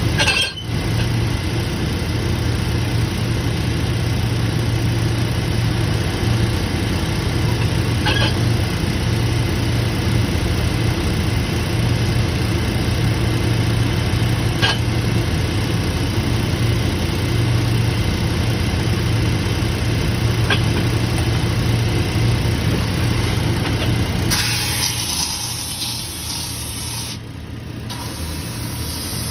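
A machine motor running with a steady low hum and a few faint clicks. About 24 s in the hum gives way to a quieter hiss.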